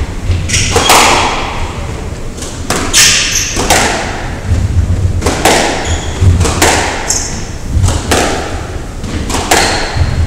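Squash rally: the hard rubber ball struck by racquets and smacking off the court walls, a sharp echoing crack about once a second, with players' shoes squeaking on the wooden floor between shots.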